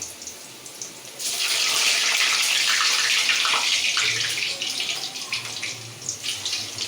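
Potato pieces going into hot oil in a karai: a loud frying sizzle starts about a second in and slowly eases off.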